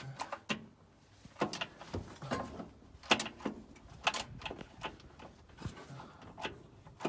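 Scattered, irregular knocks and clunks of metal parts and tools being handled while an automatic transmission is worked into place against a V8 engine.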